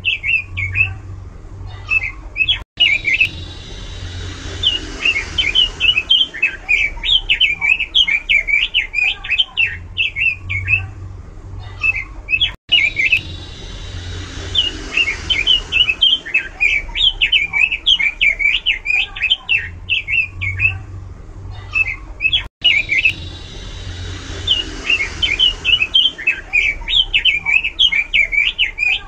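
Pekin robin (red-billed leiothrix) singing loud, varied song made of rapid strings of quick rising and falling notes. The same stretch of roughly ten seconds repeats three times, each time after a brief cut-out in the sound, as a looped recording does.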